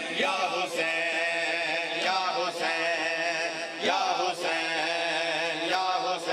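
Male voices chanting a noha, a Shia mourning lament, with a few sharp slaps of hands on bare chests in the matam.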